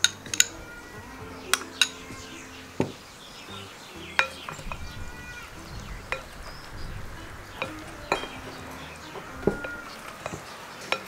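Glass bowl and wooden spoon clinking and knocking against a ceramic mixing bowl while a thick, creamy salad is stirred: about ten sharp clinks, irregularly spaced, over soft stirring.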